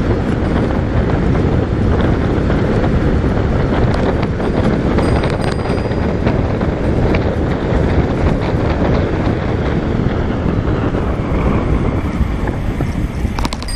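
Steady, loud wind noise buffeting the microphone of a camera on a bicycle coasting downhill at about 60 km/h.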